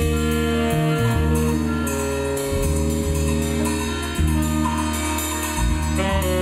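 Live microtonal free jazz from a small band: saxophone and electric guitars hold long overlapping notes over a low bass drone, with drums and cymbals underneath.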